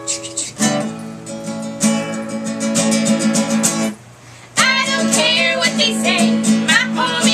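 Acoustic guitar and ukulele strumming a song intro in waltz time. The strumming stops briefly about four seconds in, then starts again with a high, wavering wordless melody over it.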